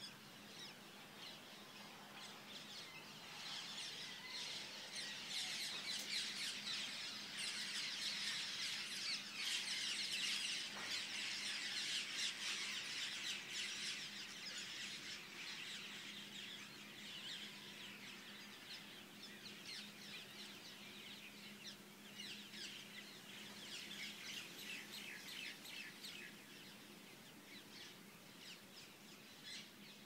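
A large flock of wild parrots flying overhead: a dense chorus of many overlapping shrill squawking calls that swells to a peak in the middle, eases off, then rises again briefly before fading. A faint steady low hum runs underneath.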